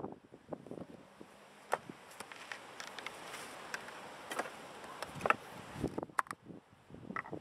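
Pages of a paperback book being handled and flipped, with short rustles and light taps against the wooden bench over a steady outdoor background hiss.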